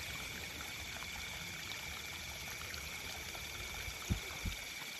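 Steady chorus of night insects, a high even buzzing, with two soft low thumps about four seconds in.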